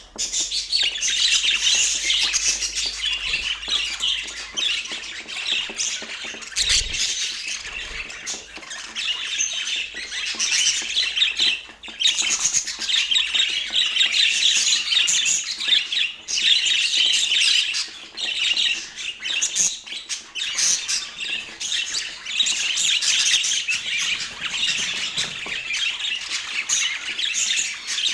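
A flock of budgerigars chattering continuously, many birds calling over one another.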